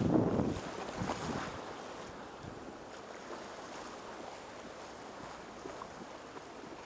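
Small surf waves washing through shallow water, with wind blowing on the microphone. Two louder surges of water come in the first second and a half, then a steady wash and hiss.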